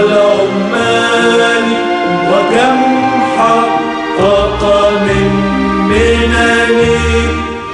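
Choir singing an Arabic anthem (nasheed) over instrumental backing, with held notes and deep bass notes joining about halfway through.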